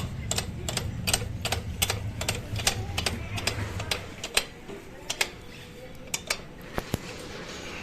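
Sharp metallic clicks of a hand tool working on the rear axle of a TVS Apache RTR motorcycle as it is tightened, several a second over a low hum for about four seconds, then sparser and more spaced out.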